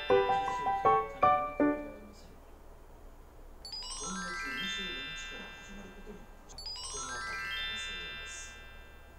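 Background music: a run of quick, bright keyboard-like notes for about two seconds, then two rising sweeps of shimmering tones a few seconds apart.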